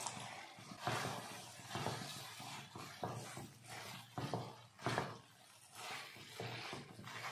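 Pieces of jackfruit tumbling from a steel bowl into thick masala in a metal kadai, then stirred in with a silicone spatula: a run of irregular scraping and stirring strokes against the pan.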